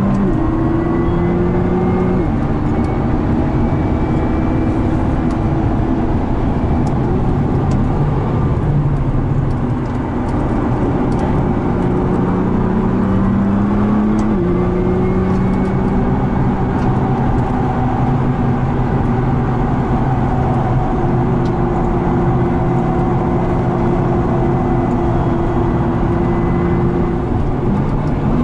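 In-cabin sound of a 2013 Nissan GT-R R35's twin-turbo 3.8-litre V6 driven hard on a race track, its pitch climbing and stepping with gear changes and throttle, about two seconds in and again about fourteen seconds in, over steady road and tyre noise.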